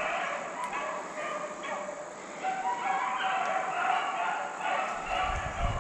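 A pack of deer hounds baying in the distance on the chase, several voices overlapping and wavering. A low rumble comes in near the end.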